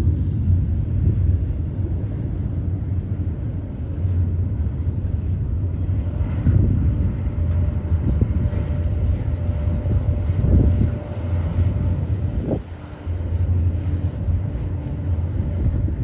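BNSF double-stack container train rolling past, its freight cars' wheels making a steady low rumble on the rails.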